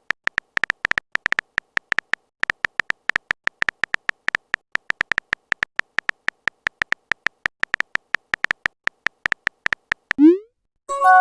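A rapid, uneven run of short, high clicks, several a second, from a phone keyboard's typing sound effect as a chat message is typed.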